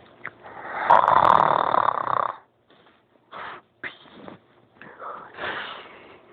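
A sleeping person snoring. One long, loud snore swells from about half a second in and cuts off sharply, followed by a few shorter, softer snoring breaths.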